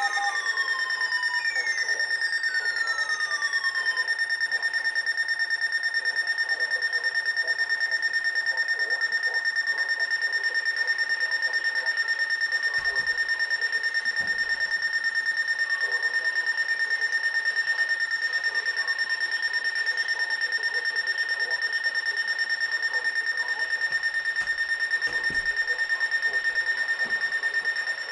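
Electronic emergency-alert alarm tone: a steady high-pitched tone that pulses rapidly. Falling pitch sweeps are laid over it, strong at first and then fainter, repeating every couple of seconds.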